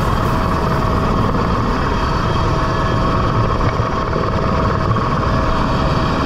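Helicopter hovering, heard from its open doorway: steady engine and rotor noise with a thin turbine whine, and rotor wash buffeting the microphone.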